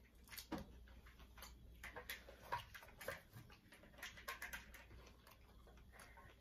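Faint, irregular clicks and wet smacks of seafood boil being eaten by hand: shrimp shells peeled and sauce-covered pieces picked from a bowl.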